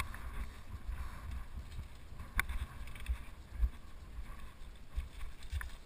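Low, uneven rumble of wind on the microphone as a mountain bike rolls slowly over loose gravel, with a sharp click about two and a half seconds in and a smaller one near the end.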